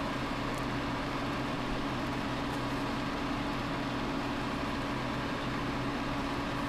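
Steady background hum and hiss with a few faint, even tones, unchanging throughout.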